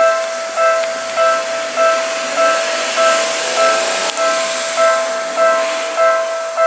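Japanese railway level crossing warning bell ringing steadily, one stroke about every 0.6 seconds. A train rushes past under it, its noise swelling to a peak a few seconds in and then fading.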